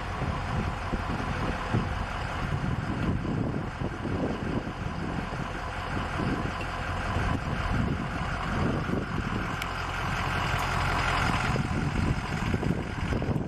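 Ford F-550 fire truck's engine idling steadily, with wind buffeting the microphone.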